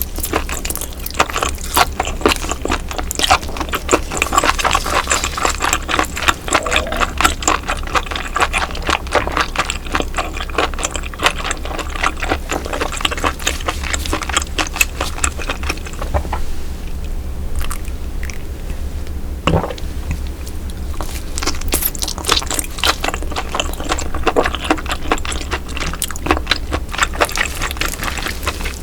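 Close-miked wet eating sounds: chewing baby octopus and slurping broth, a dense run of squishy, clicking mouth noises. They ease off briefly about two thirds of the way through, and there is a single soft knock.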